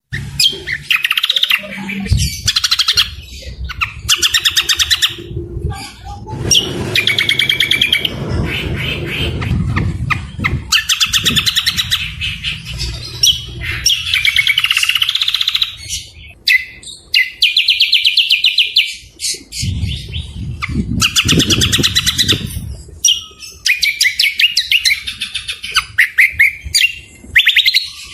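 Songbirds singing loudly in a bird-song training (masteran) recording: bursts of rapid, chattering trills and whistles, each lasting one to two seconds, with short gaps between them.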